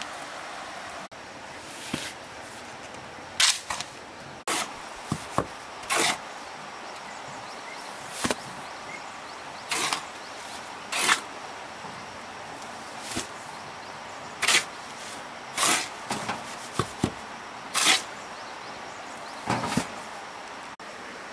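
Irregular sharp knocks of a tool striking wood, about one every second or two, some in quick pairs, over a steady background hiss.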